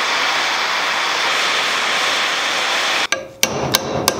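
Hand torch burning with a steady hiss as it heats a seized nut on a hydroboost unit to free it. About three seconds in the hiss stops, and a hammer starts striking a drift held against the nut: sharp ringing metal blows, about three a second.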